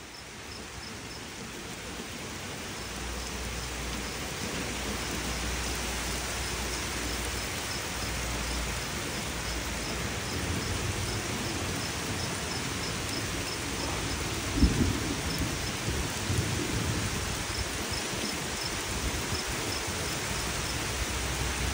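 Steady heavy rain falling, with a low thunder rumble through the first half. About two-thirds through comes one sharp thunder crack, followed by a couple of seconds of rumbling.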